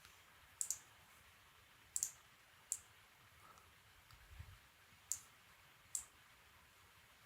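Computer mouse button clicks: a handful of sharp, faint clicks at irregular intervals, some in quick pairs, as colour is picked and painted on screen.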